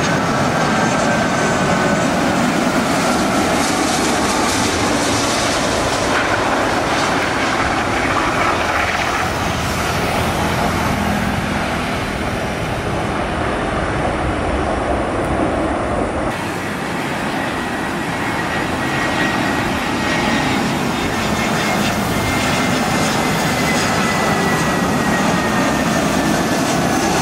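Jet airliner engines, a steady rushing noise as planes come in to land, with a high whine slowly falling in pitch in the second half.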